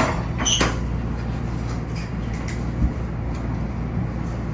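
Hitachi CQ311 rapid-transit rail car heard from inside, running slowly along a station platform as it brakes to a stop, a steady low noise. Two short squeals come near the start, and a single thump comes about three seconds in.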